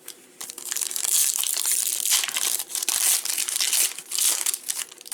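A trading-card pack's foil wrapper being torn open and crinkled by hand. It is a dense run of crackling that lasts about four seconds and stops just before the end.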